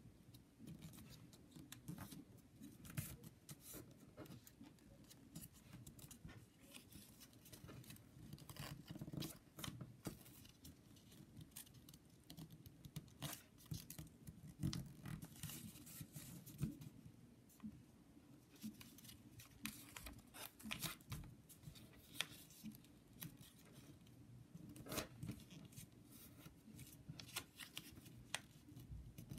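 Origami paper being folded and creased by hand: faint, irregular crinkling and rustling, with short crisp clicks as the folds are pressed flat.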